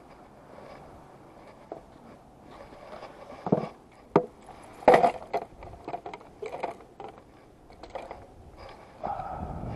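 Fishing rods and spinning reels being gathered up and handled, knocking together in three sharp clacks about three and a half to five seconds in, with lighter clicks and rustling between.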